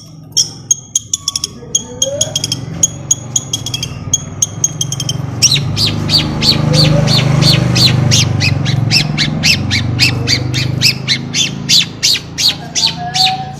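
Long-tailed shrike (cendet) calling: a long run of short, harsh, high repeated notes, quickening to about four or five a second and getting louder from about five seconds in. A low steady rumble runs underneath, swelling in the middle.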